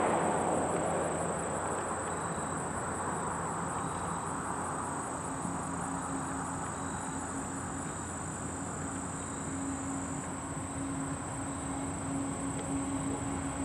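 Diesel locomotives of an approaching freight train running with a steady low hum that grows a little louder near the end, while a passing car fades away in the first couple of seconds. Insects chirr steadily throughout.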